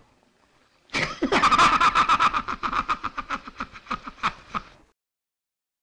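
A man's long, loud laugh: a fast run of 'ha-ha-ha' pulses, about six a second, that starts about a second in and fades away just before the end.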